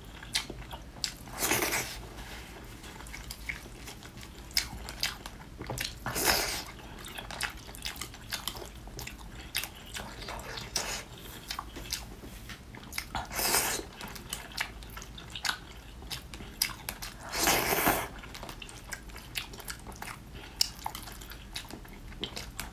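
Close-miked eating sounds: wet chewing and many small mouth clicks from someone eating a saucy stir-fried dish with chopsticks, with four louder half-second noises as mouthfuls are taken in.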